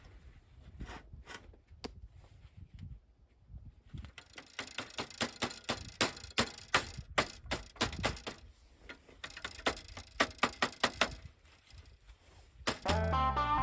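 Sharp mechanical clicks and knocks from work on the bridge mounting: a few scattered at first, then a dense run of clicks, several a second, for about seven seconds. Guitar music comes in near the end.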